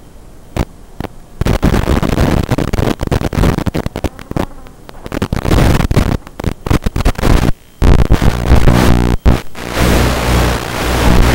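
Loud crackling static from an analog FPV video receiver as the signal breaks up, full of clicks, cutting out for a moment after about seven and a half seconds and then turning to a harsh, steady buzz.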